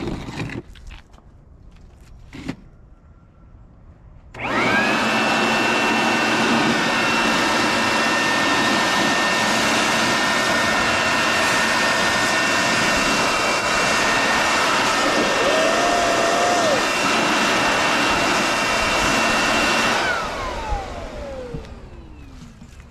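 After a couple of short knocks, an electric leaf blower switches on about four seconds in. Its motor whine climbs quickly to a steady high pitch over a loud rush of air, and it runs for about fifteen seconds. Then it is switched off and the whine falls away as the fan spins down.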